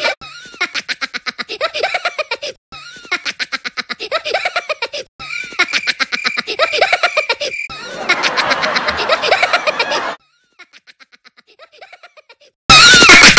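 The Minions' cartoon laugh, a rapid high-pitched 'ha ha ha', played over and over as edited variations about two and a half seconds each with short breaks between. Near the end one version is faint and distant, then it cuts suddenly to a very loud, distorted version.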